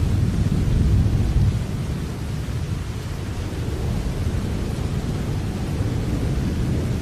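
Steady rain: an even hiss over a deep low rumble, the rumble heavier for the first second and a half and then easing a little.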